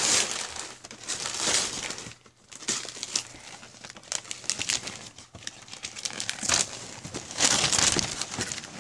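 Wrapping paper being crinkled and rustled by hand as a gift box is unwrapped. The sound comes in several loud surges, the longest near the end, with quieter paper handling between.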